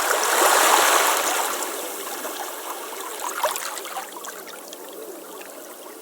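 Running water trickling and gurgling, loudest in the first second or so, then settling to a lower, steady flow.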